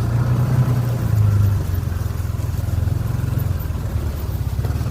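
ATV engine running while riding, a steady low drone that swells briefly about a second in and then settles.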